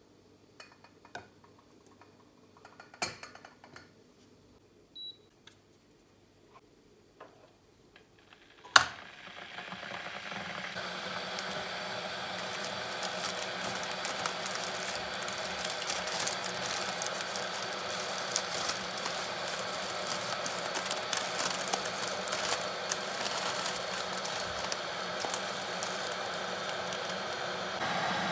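Scattered light clicks and taps, then one sharp click about nine seconds in. After it a steady crackling hiss builds over a couple of seconds and holds.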